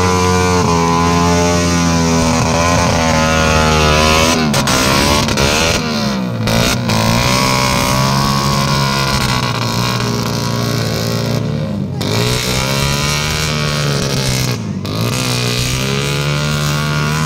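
Several dirt bike engines revving up and down, their pitch rising and falling again and again as the bikes labour through deep mud; overlapping revs from more than one bike cross each other partway through.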